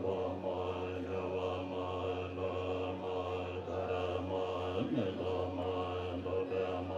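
A large group of Tibetan Buddhist monks chanting prayers in unison, a steady low drone of many voices.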